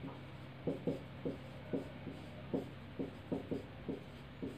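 Marker pen writing on a whiteboard: quiet, short, irregular strokes and taps as figures and brackets are written.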